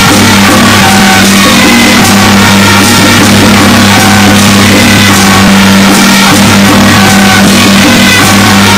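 Loud music: a steady low drone under a melody of short held notes.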